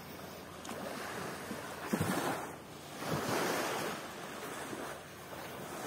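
Water washing against the shore in surges that swell and fall back, with wind buffeting the microphone.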